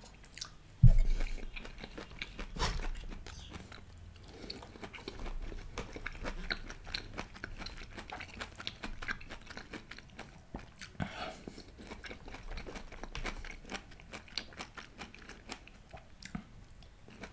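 A person chewing food close to a microphone, with many small wet mouth clicks and smacks. There is one sharp thump about a second in.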